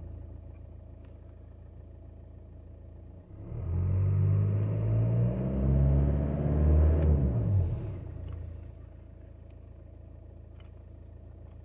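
VW Jetta Mk5's 1.9 TDI four-cylinder turbo-diesel engine idling, revved up once about three seconds in, held for some four seconds and let fall back to idle. Its turbo is freshly rebuilt, and the engine runs smoother and quieter with it.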